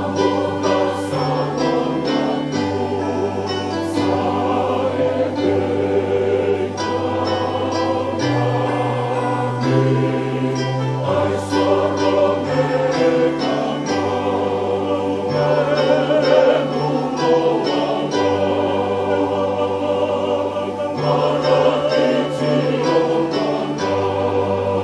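Choir singing a Fijian Methodist hymn in several-part harmony, with held low bass notes that change every second or two beneath the upper voices.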